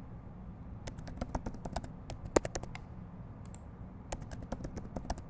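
Typing on a computer keyboard: two runs of quick key clicks with a pause of about a second and a half between them, over a low steady hum.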